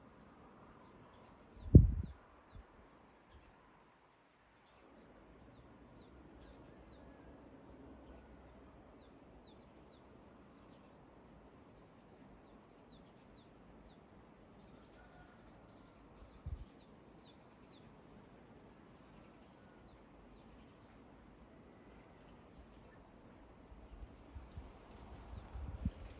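Steady high trill of insects with faint, short bird chirps repeating over it. A loud, low thump comes about two seconds in, a softer one a little past halfway, and low rumbling starts near the end.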